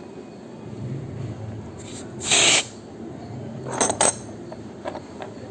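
A short, loud hiss about two seconds in, like gas or air let out, followed by a few light metallic clinks near four seconds.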